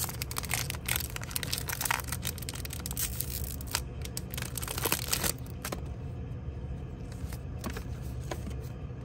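Foil wrapper of a Pokémon booster pack crinkling and tearing as it is pulled open, dense for about the first five seconds. After that come sparser, quieter clicks as the cards are handled, over a low steady hum.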